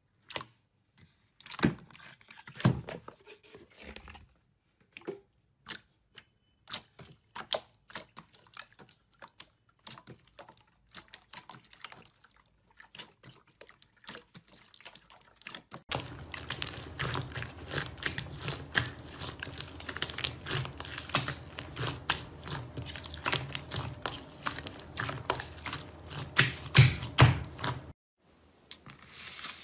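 Hands pressing and stretching glossy clear orange slime, giving scattered sticky clicks and pops. About halfway through, the sound turns into a dense stretch of crackling and popping that stops suddenly near the end.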